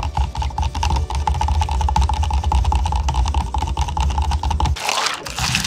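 Long bar spoon stirring a strawberry latte in a tall plastic cup, a fast, steady scraping rattle against the cup walls with a low rumble under it. The stirring stops abruptly near the end, followed by a brief hiss.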